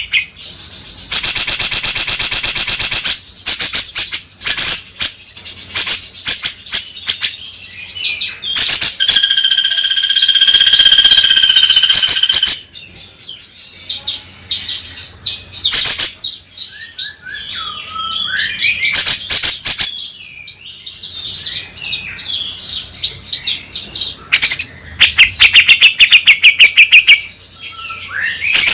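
Grey-cheeked bulbul (cucak jenggot) calling: loud rapid chattering bursts, a long held note partway through, gliding whistles, and fast trills near the end.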